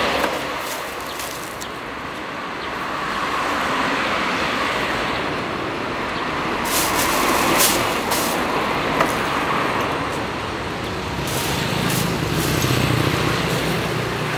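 Road traffic passing on a street, swelling and fading, with a heavier vehicle's low engine rumble near the end. A few sharp clicks come about halfway through.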